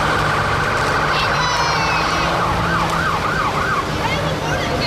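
Electronic emergency-vehicle siren sounding in a rapid warble. About halfway through it switches to a slower yelp of about four rises a second. The steady hum of a vehicle engine runs underneath.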